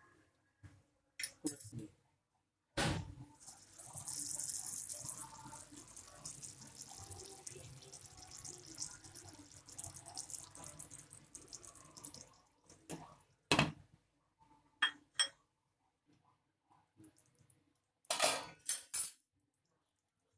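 Cookware clatter while cooking a curry: scattered sharp clinks and knocks of utensils against a pan and its glass lid. There is a stretch of hissing about three seconds in, with softer clatter after it.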